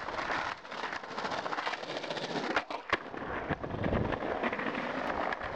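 Skateboard wheels rolling over paving stones toward the ground, a rough grinding noise with many clicks over the joints and a sharp crack about three seconds in; the rumble grows as the board nears and passes close by.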